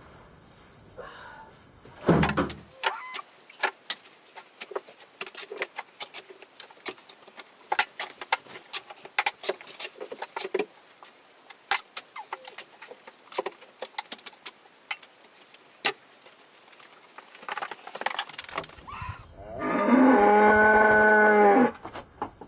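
Many short scrapes and knocks of a tool clearing packed hay bedding and manure off a concrete stall floor. Near the end, a cow moos once, long and steady; this is the loudest sound.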